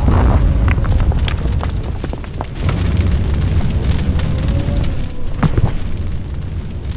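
Cartoon explosion sound effect for a lightning strike blowing up a building: a loud boom at the start, then a long low rumble with crackling flames, over background music.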